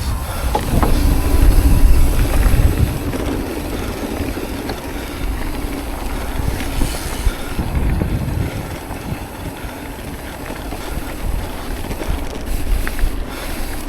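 Wind buffeting a chest-mounted camera's microphone, mixed with the rattle and tyre rumble of an electric mountain bike being ridden on dirt trails. The low wind rumble is heaviest in the first few seconds.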